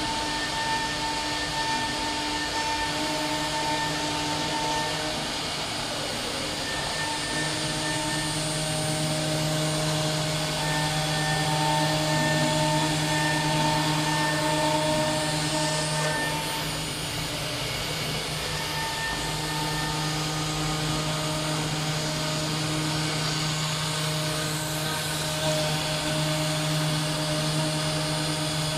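AccTek AKM2030 four-axis CNC router running, a steady hum and hiss under several whining motor tones. The tones start and stop every few seconds as the axes move, and a low hum drops away for a few seconds about two-thirds of the way through.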